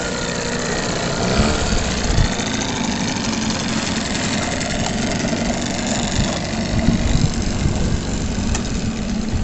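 Small outboard motor on an aluminium boat running at low speed as the boat comes alongside.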